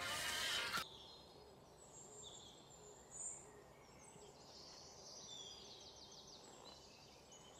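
Music and a voice cut off under a second in, leaving quiet outdoor ambience with faint high-pitched chirps and trills of forest birds and insects, one short chirp about three seconds in and a rapid trill around five to six seconds.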